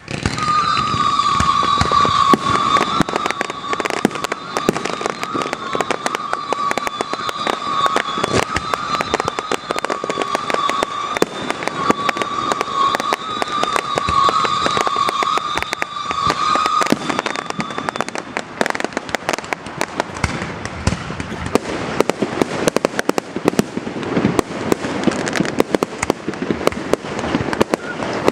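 Fireworks going off in a dense, continuous barrage of crackles and pops that starts abruptly. A steady high whistle runs over the crackling until about eighteen seconds in, and after that the popping goes on with more deep bangs among it.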